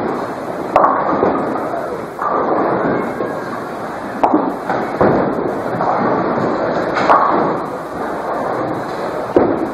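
Bowling alley noise: balls rolling down the lanes and pins being struck, with about six sharp crashes spread through a continuous rumbling din.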